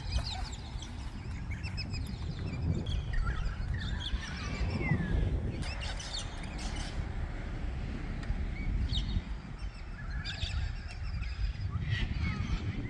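Small birds chirping: many short, quick calls that glide up and down, scattered throughout, over a steady low rumble.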